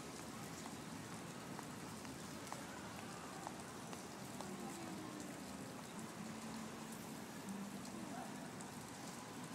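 Steady city-park background noise: an even hiss like splashing or falling water.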